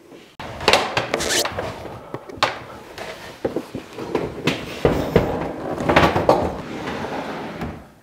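Built-in refrigerator being pushed into its kitchen cabinet niche: irregular scraping and rumbling with several knocks as the appliance meets the cabinet.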